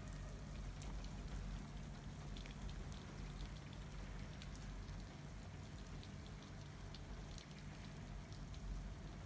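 Wet snow falling and landing on outdoor surfaces: a soft, even hiss with scattered light ticks over a low rumble.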